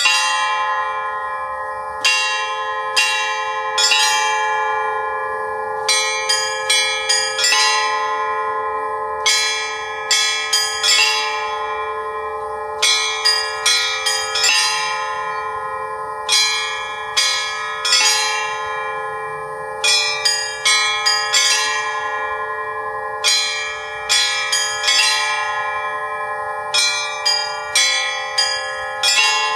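Russian Orthodox church bells rung in the Russian style, the clappers struck against fixed bells. They play a repeating rhythmic peal: slower single strokes alternate with quick runs of strikes on the higher bells, while the bells' tones ring on underneath.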